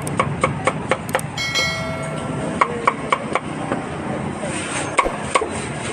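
Meat cleaver chopping grilled meat on a wooden block in quick runs of sharp strokes, about three or four a second, with short pauses between runs. A brief metallic ring comes about a second and a half in, over a steady background din.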